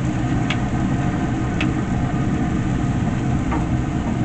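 Steady low mechanical rumble with a constant hum, and two light clicks about half a second and a second and a half in.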